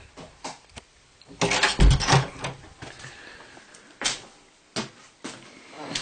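A wooden door being handled: a cluster of knocks with one heavy thud about two seconds in, then a few single sharp clicks.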